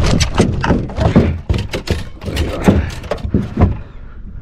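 A freshly landed large fish thrashing in the boat, a rapid irregular run of thuds and wet slaps against the hull that dies away near the end.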